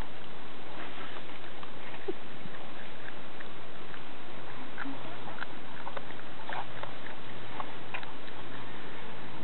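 Marmots gnawing on carrot pieces: scattered short, crisp crunching ticks over a steady noisy background.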